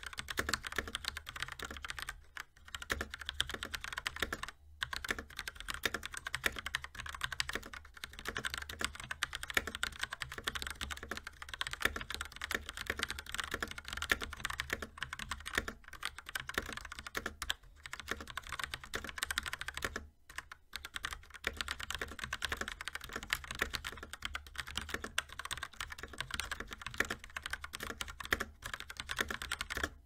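Fast, continuous typing on a Rapoo V500 mechanical keyboard with Kailh Yellow linear switches, rapid keystroke clacks broken by a few brief pauses. The keystrokes sound uneven from key to key, which the reviewer puts down to the switches' inconsistent spring weighting.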